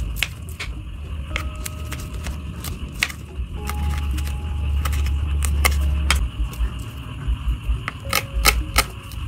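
Kitchen knife slicing chillies and shallots on a wooden cutting board: irregular sharp taps of the blade striking the board, coming in a quicker run near the end. A low rumble runs underneath, strongest in the middle.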